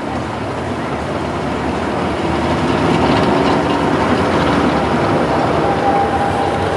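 Classic drag car's engine running at low speed as the car rolls closer, growing louder over the first few seconds. A steady whine comes in near the end.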